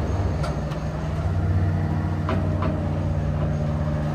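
Engine of the machine lifting a ute body off its chassis on straps, running steadily, with a few light clicks and knocks.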